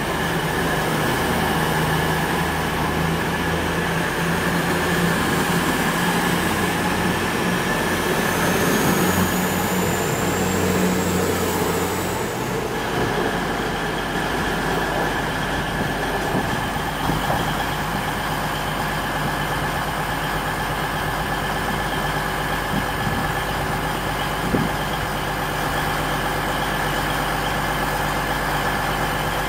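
East Midlands Trains Class 222 Meridian diesel multiple unit with its underfloor diesel engines working as it moves along the platform, a whine rising in pitch over it. About twelve seconds in the sound cuts abruptly to Meridian engines idling steadily at the platform.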